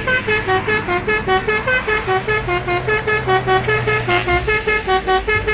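Bus telolet horn playing a fast tune of short, separate notes, about five a second, jumping between several pitches.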